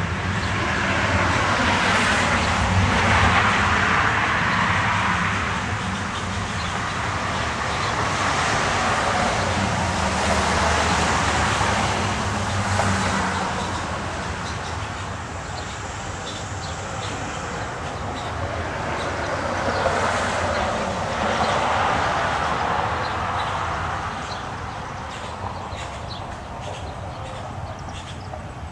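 Cars passing on a busy street, their tyre noise swelling and fading three times. Beneath it runs a steady low rumble.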